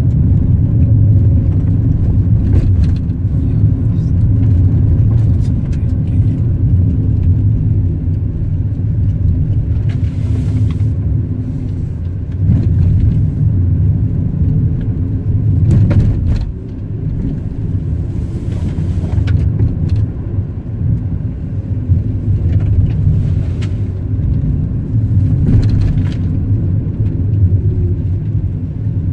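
Car driving, heard from inside the cabin: a steady low rumble of engine and tyres, with scattered light knocks and a couple of brief hissing patches.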